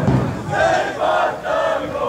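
A crowd of supporters chanting in unison: three loud shouted syllables in a row, starting about half a second in.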